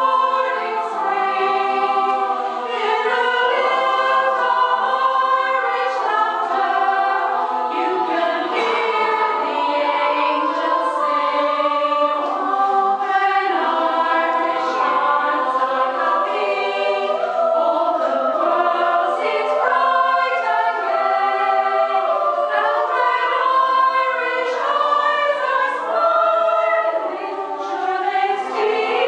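Music of a choir singing, several voices holding notes together.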